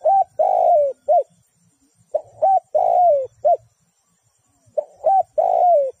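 Spotted dove cooing, three repeats of its song about every two and a half to three seconds. Each phrase is a few short coos around one longer coo that falls in pitch.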